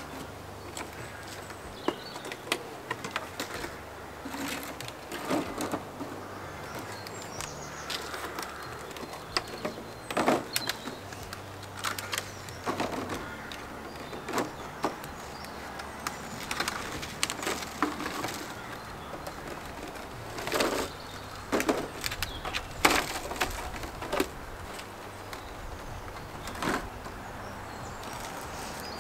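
Thin plastic seed trays and clear plastic propagator lids being handled, stacked and set down, giving repeated light clatters and crinkles. Birds, among them a pigeon cooing, call in the background.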